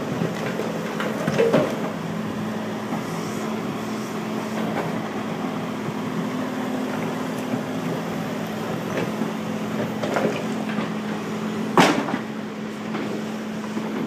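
Tracked excavator's diesel engine running steadily while its bucket digs through rocky rubble, with scattered knocks and scrapes. One sharp, loud clank comes near the end.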